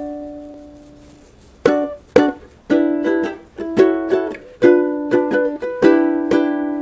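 Intro music on plucked strings: a chord rings out and fades over the first second, then from about two seconds in chords are strummed in a steady rhythm.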